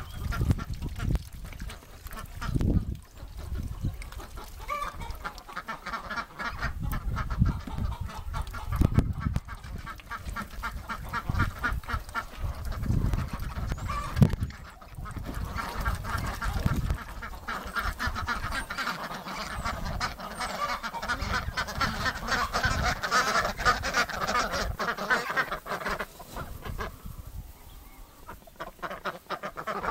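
A flock of domestic ducks quacking and chattering, the calls growing busier and denser through the middle and later part, over an irregular low rumble.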